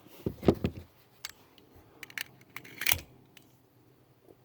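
Handling clicks and light rattles of 9mm ammunition and its box: a quick group of sharp clicks about half a second in, scattered single clicks, and another cluster near three seconds.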